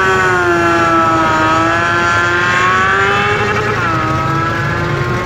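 Drag-racing motorcycle engine held at high revs, a steady high engine note that sags slightly and dips briefly about four seconds in before picking back up.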